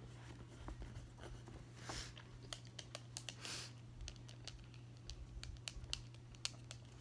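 Faint pen-and-paper handling: two short scratchy rustles, about two and three and a half seconds in, and many small scattered clicks and taps, over a low steady hum.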